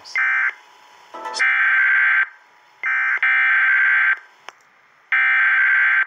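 Emergency Alert System SAME header data bursts from a radio speaker: a harsh, buzzy digital screech. A short burst comes at the start, then three bursts of about a second each, separated by brief pauses. They are the coded header announcing a fire-warning alert.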